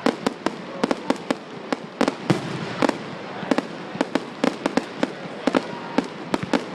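Fireworks going off in a rapid, irregular string of sharp bangs, several a second, over a steady crackling hiss.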